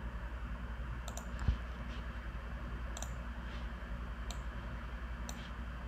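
Sparse clicks of a computer mouse and keyboard, about five sharp clicks spaced a second or so apart with one duller thump, over a steady low hum.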